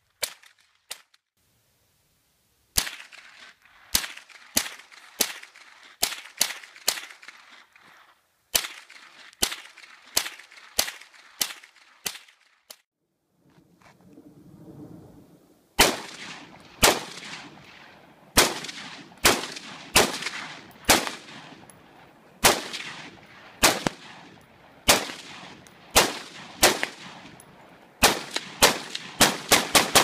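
AR-style rifle fired semi-automatically in strings of sharp cracks, each with a short echo. The shots come irregularly, about one or two a second, stop for a couple of seconds partway through, then quicken to about three a second near the end.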